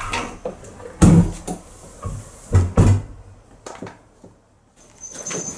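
Footsteps on a wooden hallway floor: several dull, uneven thumps with lighter knocks between them. A thin high steady tone starts near the end.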